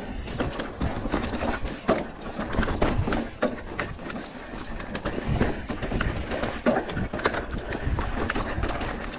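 Mountain bike rolling fast downhill over rock slabs, dirt and loose stones: tyre noise with the bike rattling and knocking over bumps, and wind rumbling on the microphone.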